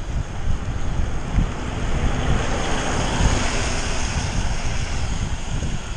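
Wind rumbling on the camera microphone of a moving bicycle on a rain-wet road, with a steady wet hiss. A louder hiss swells about three seconds in as a car passes on the wet asphalt.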